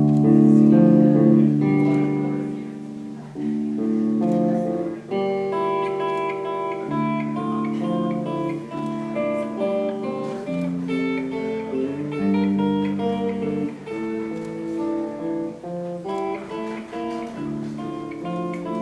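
Live rock band playing an instrumental passage led by guitars, with sustained, changing melodic notes; the music comes in abruptly and loud at the start.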